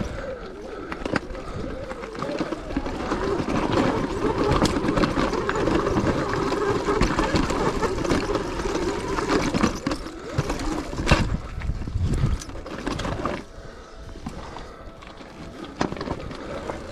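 Sur-Ron electric dirt bike's motor whining under throttle, its pitch wavering, with scattered knocks and clatter from the tyres scrabbling over rocks. The whine fades after about ten seconds and the sound drops to a quieter rumble with occasional knocks.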